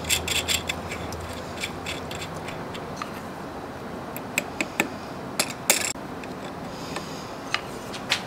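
Sharp metal clicks and clinks of a handwheel being fitted onto an Atlas lathe's cross-slide feed screw. There is a quick cluster of clicks at the start, then single taps and clinks at irregular intervals.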